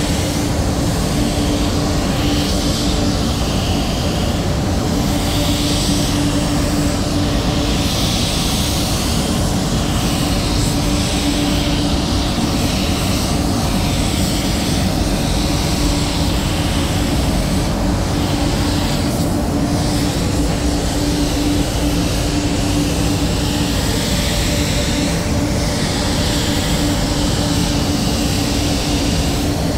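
SATA 5000 RP Phaser compressed-air spray gun hissing as it sprays waterborne basecoat, the hiss swelling and easing with each pass. Under it runs a steady low hum.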